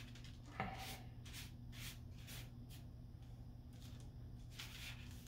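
A metal tablespoon scraping and tapping as dry sift is scooped off paper and into a 25-micron rosin filter bag: a run of soft, short, uneven scrapes and rustles. A faint steady low hum lies underneath.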